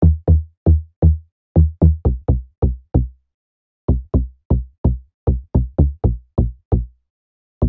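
Serum's "Eclipse" bass preset, two saw-wave oscillators through a 24 dB low-pass filter, playing a rhythmic deep-house bassline of short plucky notes. Each note is bright at the start and closes down quickly. The phrase stops for about a second just after three seconds in, then repeats.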